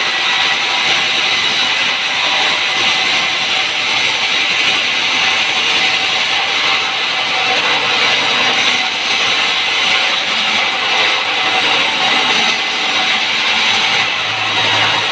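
Sawmill saw cutting wood: a loud, steady noise of machinery running, with a low hum coming in near the end.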